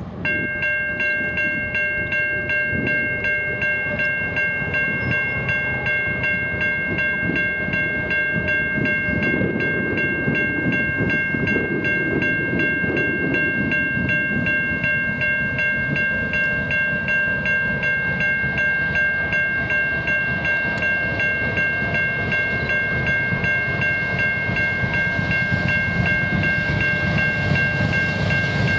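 BNSF diesel locomotive's air horn sounding one long, unbroken chord of several steady notes as the freight train approaches. A low train rumble lies beneath it and grows louder near the end as the locomotives draw close.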